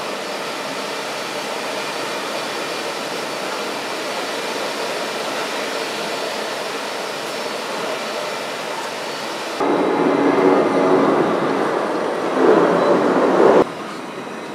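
Jet engines of a taxiing Airbus A321-100 airliner running at low power: a steady rushing drone. About two-thirds of the way through, a louder stretch with steady droning tones starts suddenly and cuts off abruptly about four seconds later.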